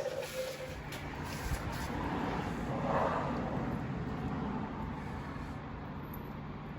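Motor vehicle engine running steadily, growing louder about two to three seconds in, then easing off.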